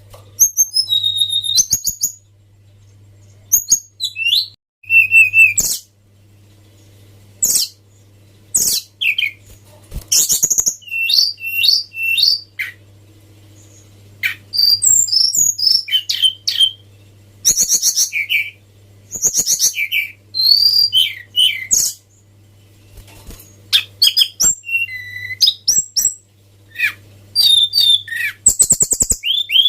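Tledekan gunung (Sunda robin) singing in short, rapid phrases of high whistles, fast trills and sliding notes, with brief pauses between phrases, over a faint steady low hum.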